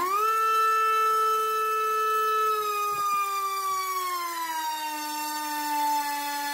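Racerstar BR2205S 2300KV brushless motor driving a DALPROP T5046 three-blade 5-inch propeller on 4S: it finishes a fast spin-up at the very start into a loud, steady, high whine at full thrust, then slides down in pitch about three to five seconds in as it slows and the thrust falls, holding a lower whine to the end.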